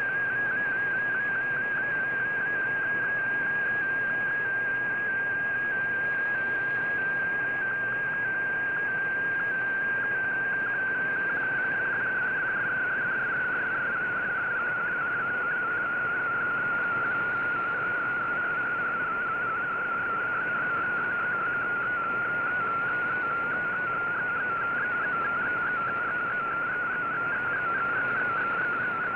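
MFSK digital text signal of the VOA Radiogram received on shortwave: a high, warbling tone that flickers rapidly between closely spaced pitches over a steady hiss of static. It drifts slightly lower in pitch about halfway through.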